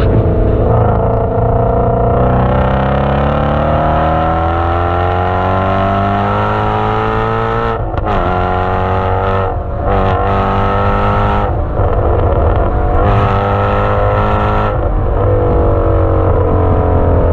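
2017 Shelby GT350's 5.2-litre flat-plane-crank V8, recorded at the exhaust, pulling hard under full throttle with the pitch climbing steadily toward high revs. About eight seconds in the pitch drops sharply at an upshift, and the engine pulls again. Near the end it comes off the throttle and the pitch falls.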